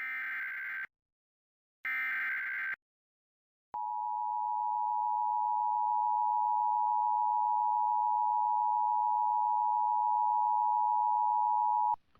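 Emergency Alert System broadcast signal: two short bursts of warbling SAME header data, about a second each, then the two-tone EAS attention signal, a steady tone held for about eight seconds that cuts off abruptly. It signals the start of an emergency alert activation.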